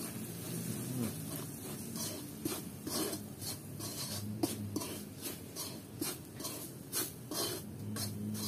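Metal spatula scraping and stirring chopped garlic and spice powder around a metal wok, in short rasping strokes about two a second.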